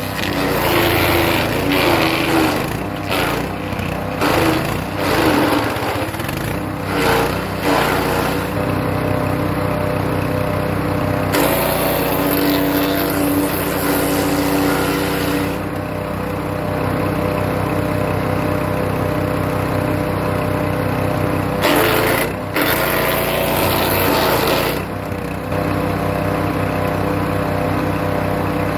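Hecht 6208 wood chipper's engine running steadily while birch branches are fed through it. Spells of loud chipping and shredding come several times: in the first few seconds, again about halfway, and once more later on.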